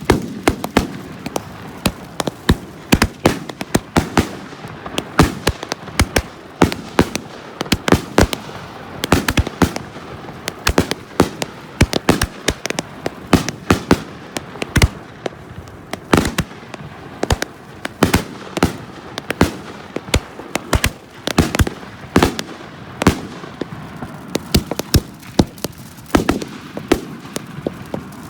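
Consumer fireworks display firing: a dense, continuous stream of sharp bangs and crackling reports, several a second, some much louder than others.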